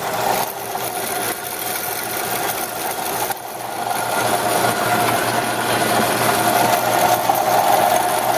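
Vectrax 7" x 12" horizontal band saw running after being switched on: the motor and blade drive make a steady hum and whir, together with the coolant pump.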